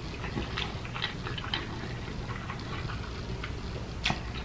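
Close-miked eating sounds: soft chewing and mouth noises with scattered small clicks, and one sharper click about four seconds in.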